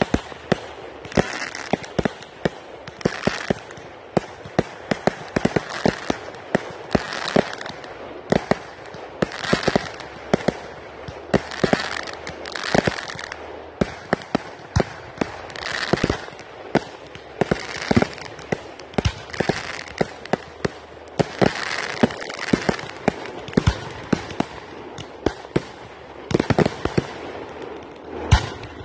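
Fireworks display: a rapid, continuous barrage of shells and comets launching and bursting, sharp bangs several a second with hissing between them.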